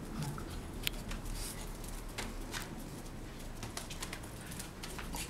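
Young dogs play-fighting on concrete: scuffling with scattered sharp clicks of paws and claws.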